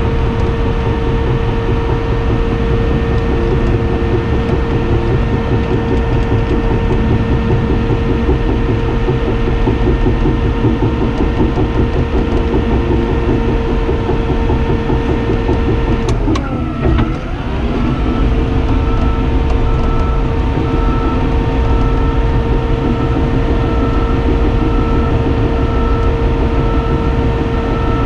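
Cat D5N XL bulldozer's diesel engine running hard under load, heard from inside the cab, with a steady whine over the low rumble while it pushes dirt. A little over halfway through, the engine note briefly drops and comes back up. After that a faint, regular beeping sets in.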